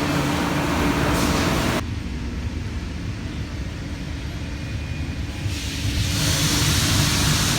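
Heavy engine or machinery running, a steady hum that changes abruptly about two seconds in to a quieter low rumble. A loud hiss builds from about six seconds in.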